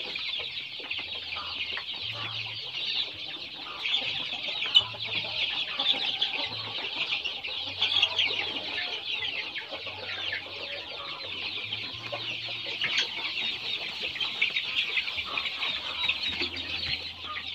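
A flock of about 400 forty-day-old chicks cheeping all at once: a dense, continuous chorus of short, high, downward-sliding peeps.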